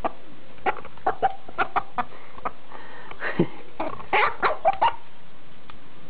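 A hen and Kangal puppies jostling at a shared metal feed bowl: a string of short, sharp clucks and knocks, thickest about four to five seconds in.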